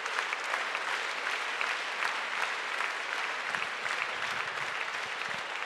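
Audience applauding steadily: many hands clapping at once in a large hall.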